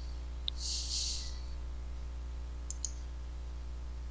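Faint computer mouse clicks: a single tick about half a second in and a few quick clicks about two and a half seconds in, over a steady low electrical hum. A short hiss comes about a second in.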